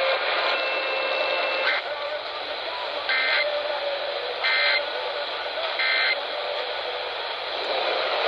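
Emergency Alert System SAME end-of-message data burst, sent three times: short, identical warbling digital tone bursts about 1.3 s apart over radio hiss. They mark the close of a required monthly test alert. A thin steady high tone sounds for about a second near the start.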